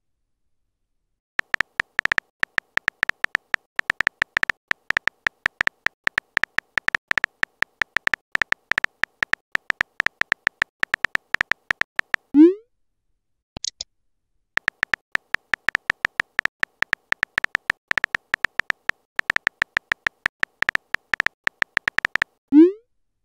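Texting-app keyboard sound effects: rapid synthetic key clicks, several a second, as two messages are typed out. Each run of clicks ends in a short rising whoosh as the message is sent. A brief high chirp follows about a second after the first send.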